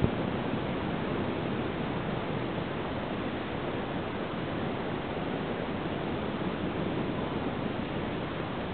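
Steady rushing noise of breaking surf and wind on the beach, with a short knock at the very start.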